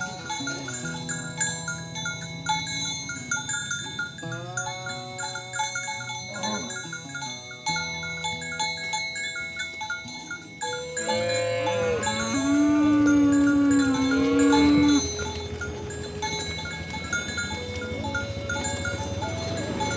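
Cows mooing over clanking cowbells: a shorter call about four seconds in, then a loud, long low moo from about eleven seconds in that lasts some four seconds.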